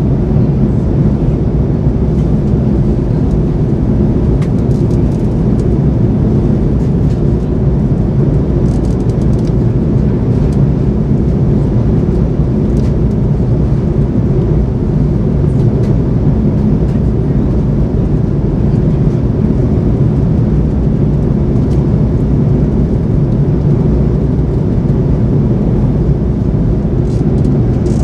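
Steady cabin noise of a Boeing 787-9 in flight, heard from a window seat beside its General Electric GEnx engine: a constant low roar of engine and airflow, with no change in pitch or level.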